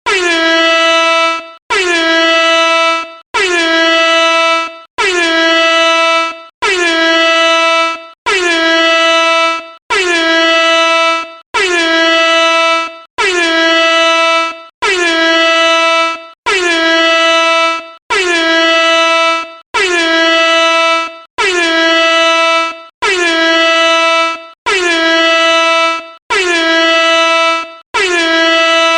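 Air horn sounding in short repeated blasts, about one every second and a half. Each blast is a steady, loud tone that dips slightly in pitch as it starts and then cuts off abruptly.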